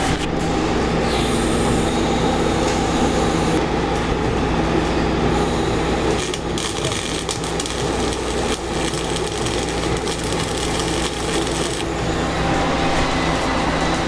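CO2 (MIG) welding arc crackling while tack-welding the root gap of a bevelled steel pipe, densest from about six seconds in to about twelve, over a steady hum from the welding machine.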